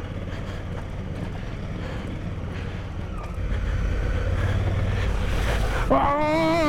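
Wind buffeting the microphone over the low rumble of an adventure motorcycle riding a dirt track, growing louder about three seconds in. Near the end a held sound with a wavering pitch comes in.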